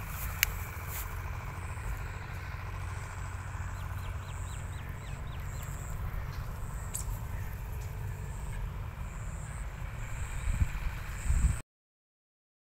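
Steady low outdoor rumble with a faint high buzz that pulses on and off, and a short run of faint quick ticks about four to five seconds in; the sound cuts off suddenly near the end.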